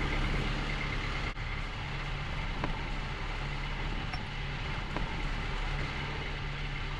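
Steady rush of wind and water aboard a sailboat under way, with a low steady hum beneath it and a few faint clicks.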